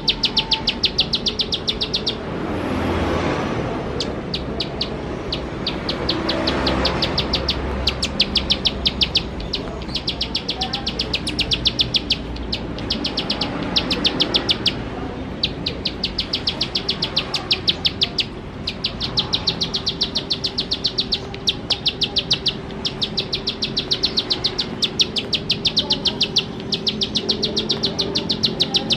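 Plain prinia (ciblek sawah) singing fast and continuously: runs of rapid, sharp, high-pitched repeated notes a few seconds long, broken by short pauses, over a low background hum.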